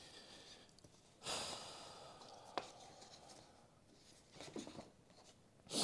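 A man's long sigh, heard close on a clip-on microphone, about a second in, then a single light click and a few faint scuffs from handling photos.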